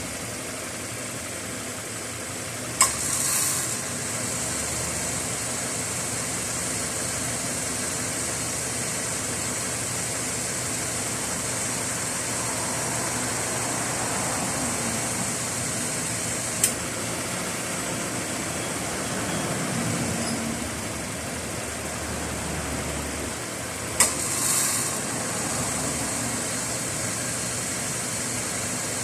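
2015 Subaru Impreza 1.6's flat-four engine idling steadily. The air-conditioning compressor clutch clicks in about three seconds in and again near the end, each time followed by a brief high-pitched cicada-like buzz, an abnormal noise on compressor start-up. There is a single click midway.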